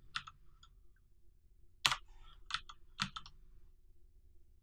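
Computer keyboard keystrokes: scattered key presses in small groups, the loudest a little under two seconds in.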